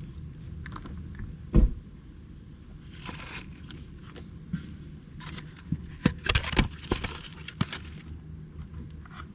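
Scattered sharp knocks and clicks, as of camp gear being handled, over a steady low hum. The loudest knock comes about one and a half seconds in, and a quick run of clicks and knocks comes between about six and eight seconds.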